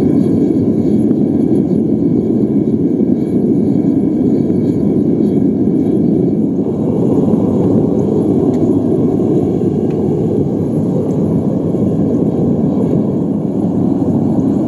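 Gas burner of a home-made foundry furnace running with a steady, even rush as it heats a crucible of brass scrap to melting. A few faint metal ticks come late on as tongs are set on the crucible.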